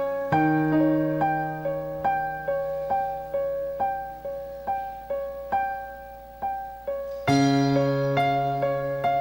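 Keyboard with a piano sound playing a slow worship-song introduction: a repeated pattern of notes, about two to three a second, over held low chords. The harmony changes just after the start, and a louder, fuller chord comes in near the end.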